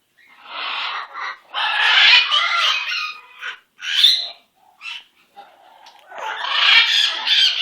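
Pet parrot squawking harshly in long stretches, with a short sharp call about four seconds in.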